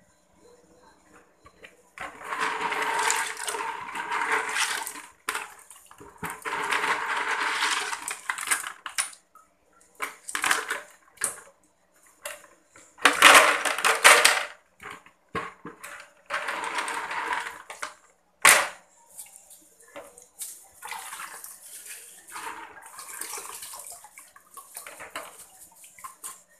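Water sloshing and splashing in a bucket in several surges a second or two long, the loudest about halfway through, with a sharp knock a little later.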